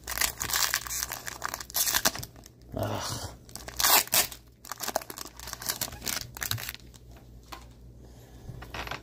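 Foil trading-card pack wrapper being torn open and peeled back, crinkling in a run of short bursts that are loudest about four seconds in. After that come lighter rustles and ticks as the cards are handled.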